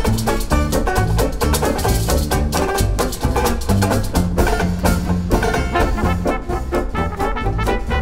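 Live hot jazz band playing a swing tune: piano, double bass and drums keeping a steady beat, with trumpet and trombone playing.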